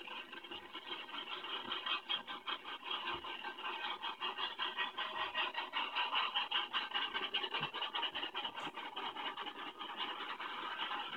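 Freight cars rolling past on the rails: a steady, rapid scraping clatter of steel wheels on track, heard as thin, band-limited audio.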